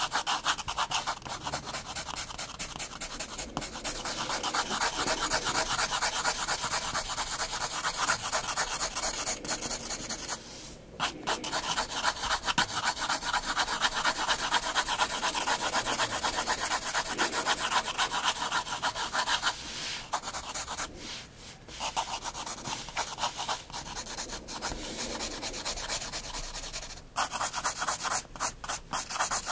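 9B graphite pencil shading on sketchbook paper: rapid back-and-forth scratchy strokes, with short pauses about ten seconds in and again around twenty seconds in.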